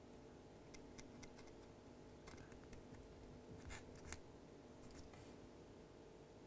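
Near silence over a faint steady hum, with a handful of small, faint clicks and ticks from fingers handling a small metal atomiser deck and its fine coil wire.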